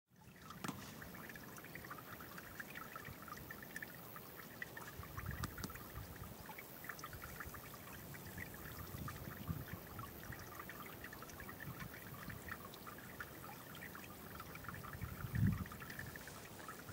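Faint outdoor ambience: a steady hiss with many small, irregular high chirps or tinkles, and low rumbles of wind on the microphone, the strongest about a second before the end.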